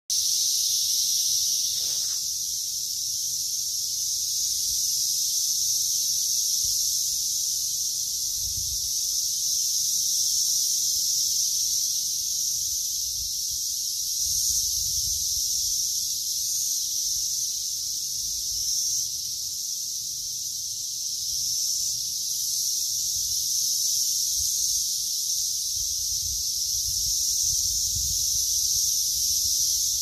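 Dense chorus of cicadas: a steady high-pitched drone.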